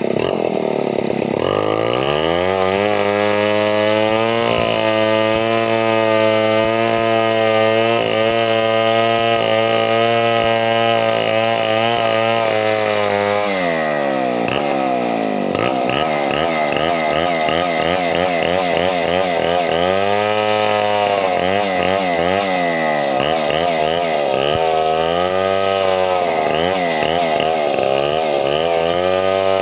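Chainsaw engine climbing to full throttle about two seconds in and holding a steady high pitch for about ten seconds. It then drops back and runs at a wavering speed, revving up and down several times.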